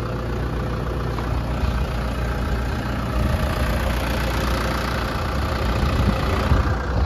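New Holland TD5040 tractor's FPT diesel engine idling steadily with a low rumble.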